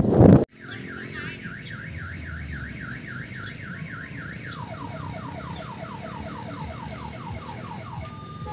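Electronic siren of an odong-odong mini tour train, warbling up and down about four times a second, then switching about halfway to a rapid series of falling sweeps, over a low rumble. In the first half-second, loud wind and motion noise from riding cuts off suddenly.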